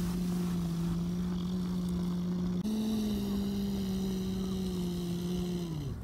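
RC dump truck's small electric motor and gearbox whining steadily as the truck drives. The whine steps up in pitch about two and a half seconds in and winds down as the truck stops near the end.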